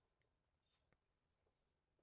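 Near silence, with one very faint click about a second in.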